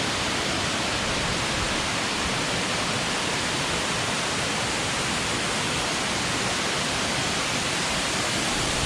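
Waterfall: a steady, unbroken rush of falling water, almost ear deafening.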